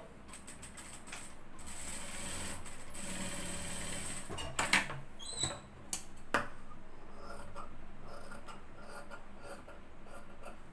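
Cloth being slid and handled beside a sewing machine, with a few sharp metallic clicks around the middle as steel scissors are picked up and handled, then scissors clipping into the fabric near the end.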